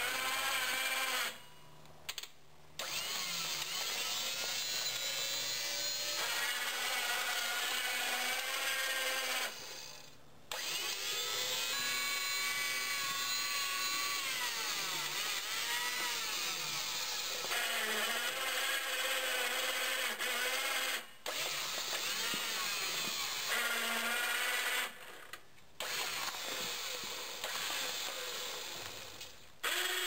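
Electric motors of a homemade 1.5-horsepower electric garden-tractor conversion whining as it drives and works its forklift, the pitch rising and falling with speed and load. The motors cut out briefly about five times and start again.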